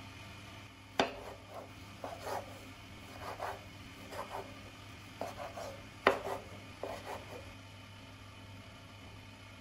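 Knife work on a cutting board: two sharp knocks about five seconds apart, each followed by a run of short scraping, rubbing strokes.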